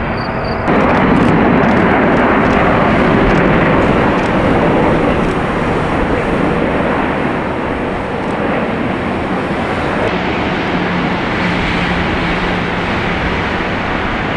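Heavy jet airliner landing: a loud, steady engine roar that cuts in suddenly under a second in, is strongest over the next few seconds and then eases a little. A low steady hum joins about ten seconds in.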